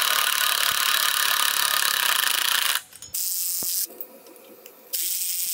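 Cordless impact driver with a 9/16 socket running nuts down onto the axle flange bolts, a loud steady rattle that stops almost three seconds in, followed by two shorter bursts.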